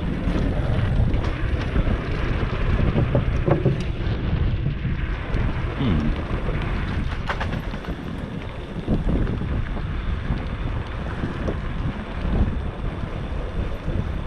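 Wind buffeting the microphone of a rider on a fast electric bike: a steady low rushing rumble, with a couple of brief clicks or knocks from the ride.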